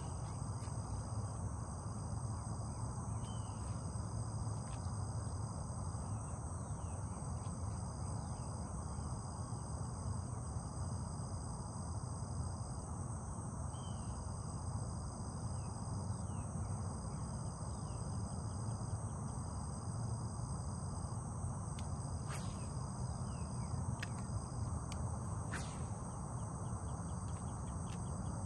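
Steady chorus of insects: several continuous high trills, one of them pulsing on and off, over a low steady rumble. A few short falling chirps come through, and a few sharp clicks sound near the end.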